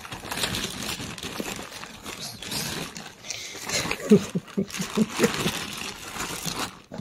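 Thin plastic carrier bag crinkling and rustling, with cardboard medicine boxes shuffling inside it, as a hand rummages through it and a cat climbs in. About four seconds in, a quick run of six or seven short, low vocal sounds rises above the rustle.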